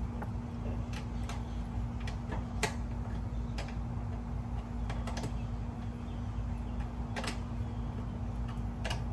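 Irregular light clicks and knocks, about a dozen, from mini-split air conditioner mounting parts being handled and positioned by hand. A sharper knock comes about two and a half seconds in and another near the seven-second mark, over a steady low hum.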